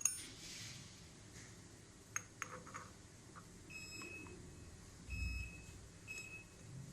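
A couple of sharp metallic clinks as spindle parts are handled, then three short, high electronic beeps about four, five and six seconds in.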